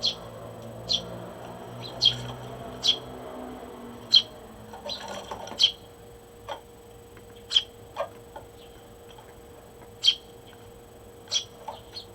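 Eurasian tree sparrow chirps: short, sharp single chirps at irregular intervals, every second or two.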